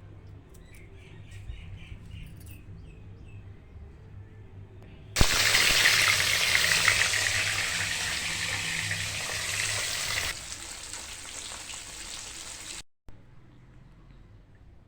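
Water running from a kitchen tap, starting suddenly about five seconds in, easing to a lower flow about halfway through and stopping near the end.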